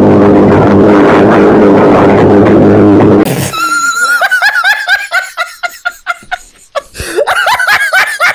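Very loud, steady electric fan noise with a droning hum, as picked up by a call participant's microphone; it cuts off suddenly about three seconds in. A man then laughs hard in high-pitched, wheezing bursts.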